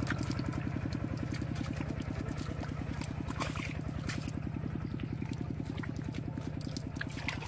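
A small engine runs steadily with a fast, even beat throughout, with scattered light splashes and squelches of hands working wet mud and water over it.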